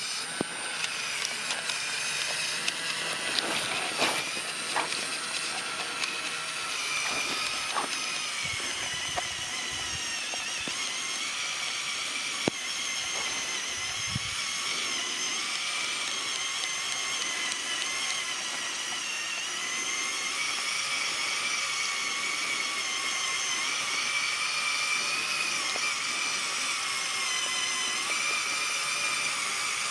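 LEGO Technic 42129 Mercedes-Benz Zetros trial truck driving, its electric motors and gear train whining steadily with the pitch wavering up and down as the load changes. Several clicks and knocks come in the first few seconds.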